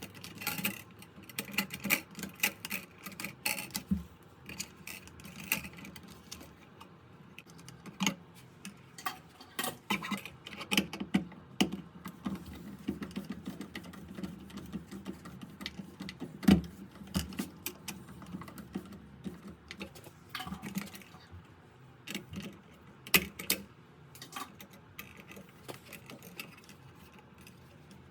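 Irregular small metallic clicks, taps and rattles of hand tools and electrical wire being worked at a metal switch box while it is bonded to ground, with one sharper knock about halfway through.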